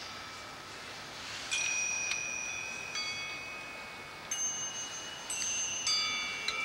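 Metal chimes struck one at a time, about six strikes starting a second and a half in, each leaving high ringing tones that overlap and hang on, over a faint steady hiss.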